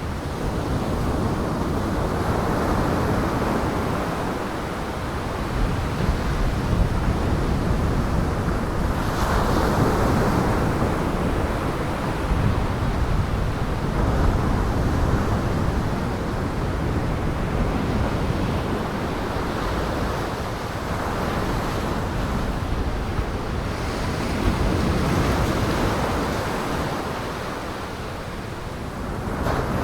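Waves breaking in heavy surf with wind blowing, a dense rushing noise that swells and eases every few seconds.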